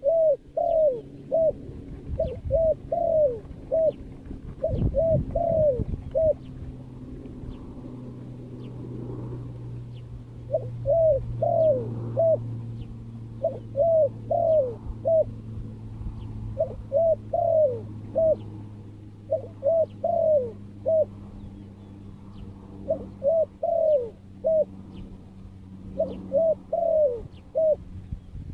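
Dove cooing in repeated phrases of four to six short, falling coo notes, one phrase every two to three seconds.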